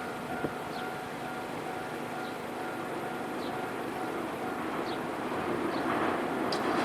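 Nankai Electric Railway train approaching a level crossing, its running noise growing steadily louder over the last second or so. A few short high chirps sound throughout.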